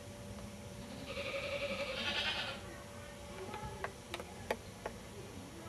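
A goat bleats once, a drawn-out call of about a second and a half. A few sharp clicks follow near the end.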